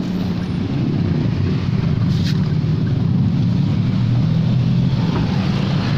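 Steady low rumble of idling and passing car engines heard through an open car window, with one short tick about two seconds in.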